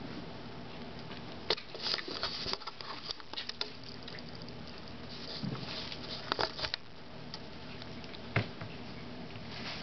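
Kittens moving about and rustling among plastic bags on a carpeted floor: light crackling and clicking in two bursts, then a single sharp knock near the end.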